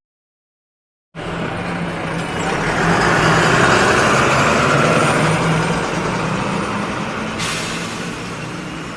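Bus sound effect: after about a second of silence a bus engine cuts in and runs with a steady low hum, growing louder and then slowly fading as the bus drives past.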